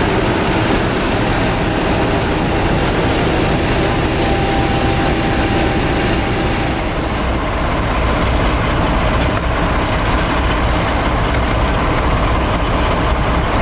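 Class 50 diesel-electric locomotive's English Electric 16-cylinder engine running loud and steady as the locomotive moves slowly along the platform. Near the end a Class 14 diesel-hydraulic locomotive's engine runs.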